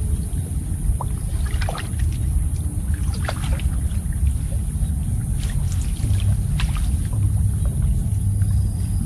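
Water splashing and sloshing in a few short, scattered bursts over a steady low rumble.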